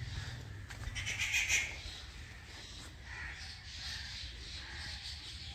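Crows cawing in the trees, several calls with the loudest about a second in, over a steady low rumble.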